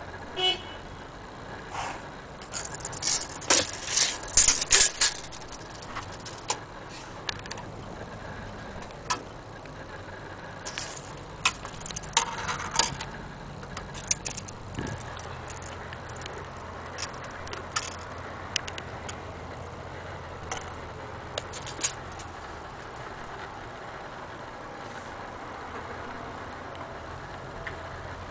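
Steel tape measure being handled: irregular clicks and rattling of the metal blade, densest in a clatter a few seconds in and again around the middle, then sparser.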